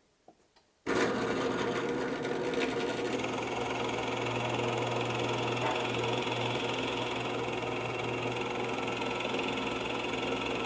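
Drill press running with a 1¼-inch Forstner bit boring into a maple board: a steady motor hum with the cutting noise of the bit over it. It starts abruptly about a second in.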